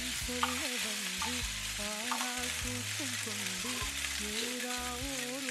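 Raw rice and moong dal roasting in ghee in a nonstick pan, stirred continuously with a spatula: a steady sizzle with the stirring of the grains. A faint melody plays underneath.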